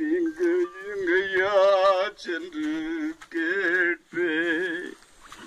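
A man's voice moaning in a run of long, wavering, half-sung wails, about five in a row with short breaks: acted cries of pain.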